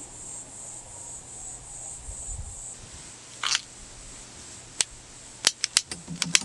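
Insects chirping steadily in a rapid pulsing trill that stops about halfway through, then a short rustle and a quick run of sharp clicks near the end: the piezo igniter of a SOTO slide gas torch being clicked to light the wood stove's kindling.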